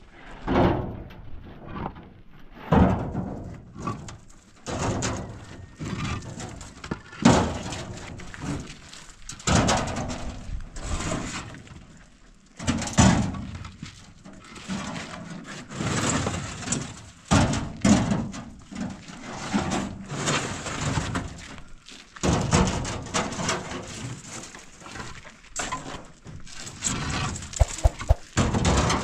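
Irregular series of knocks and scrapes from hard objects being handled, about one every one to two seconds.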